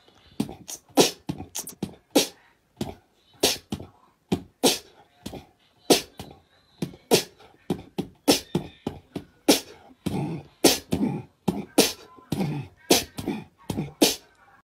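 A series of sharp clicks and pops, unevenly spaced at about two a second, with near silence between them.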